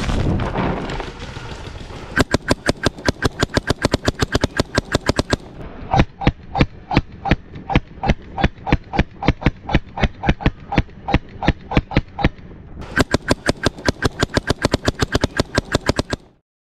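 Mechanical paintball markers firing rapidly, about six shots a second, in three long strings, the middle one duller than the other two. The sound cuts off suddenly near the end.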